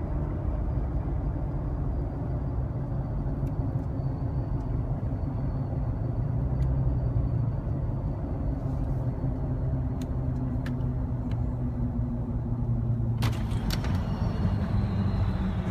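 Supercharged Toyota FJ Cruiser's 4.0 L V6 running under light throttle while driving, heard from inside the cab as a steady engine and road drone with a faint, high supercharger whine above it. About 13 seconds in there are a couple of clicks, and the whine then falls in pitch.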